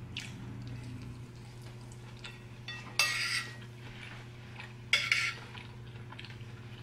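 A metal spoon scraping on a ceramic dinner plate while scooping rice and squash, in two short scrapes, about three and five seconds in, over a low steady hum.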